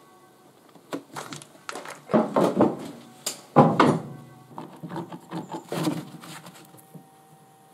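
Hand work on a plywood boat module: irregular scrapes, rustles and knocks, with the loudest scrapes about two and three and a half seconds in. The sounds fade after about six seconds.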